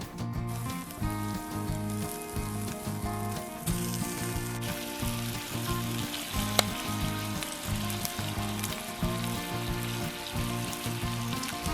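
Food sizzling as it fries in a pan, a steady hiss that grows denser about four seconds in, with background music underneath.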